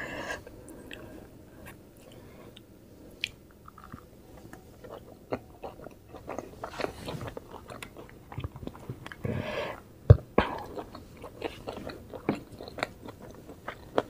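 Close-miked chewing of soft steamed vegetable momos: wet mouth sounds and small clicks, with a sharper click about ten seconds in.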